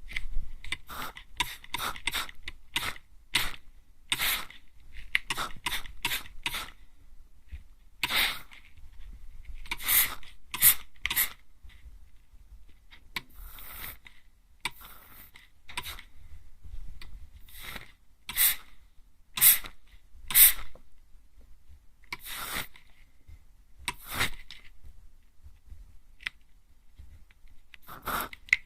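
Hand-pump mist spray bottle spritzed at close range toward the ear, a series of short hissing sprays: rapid spritzes in quick succession at first, then single sprays every second or two.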